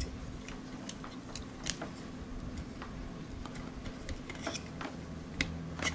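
Scattered light clicks and taps of hands handling a small robot kit's metal-and-acrylic chassis and its motor cables, with a sharper click about a second and a half in and another near the end.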